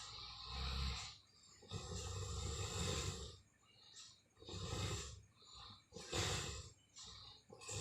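Person snoring heavily in sleep, a rough snore every second or two.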